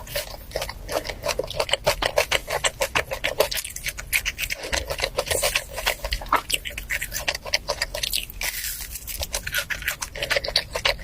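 Close-miked mukbang eating: a dense run of rapid wet clicks and smacks from chewing seafood, several a second.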